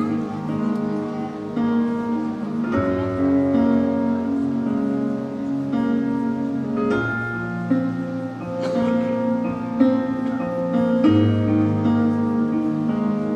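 Instrumental music: a gentle plucked-string melody over held bass notes that change every few seconds.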